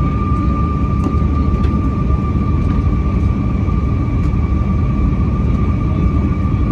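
Airliner cabin noise during the descent to land: a steady low rush of engines and airflow with a constant high-pitched whine above it.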